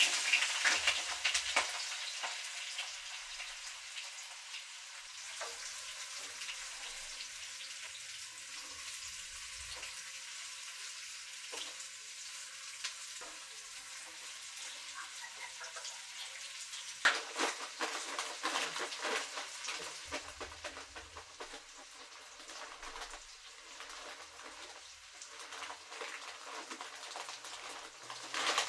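Sausage patties and chopped red onion sizzling and crackling in a nonstick frying pan, stirred with a spatula. The sizzle swells louder for a few seconds about two-thirds of the way through as the food is moved around. Near the end comes a plastic pasta bag being handled.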